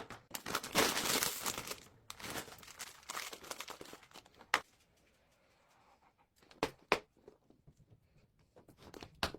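Plastic snack packaging crinkling and tearing as it is handled and opened, dying down after about four seconds, followed by a few sharp clicks or taps.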